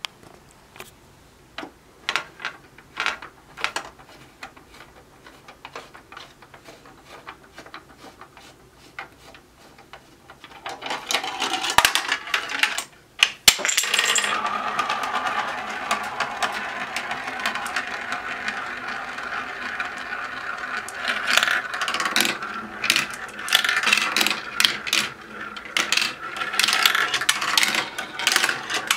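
Marbles running through a plastic marble run: scattered light clicks at first, then, about a third of the way in, a continuous rolling rattle with a ringing tone as marbles roll through plastic tracks, tubes and funnels.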